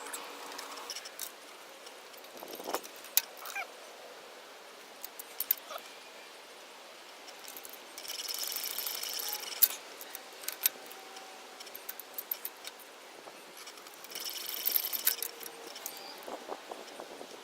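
Wrench ratcheting in two spells of rapid clicking, about eight seconds in and again near the end, as the cylinder head bolts are tightened down. Sharp single clicks and taps of the tool and socket on the bolts come in between.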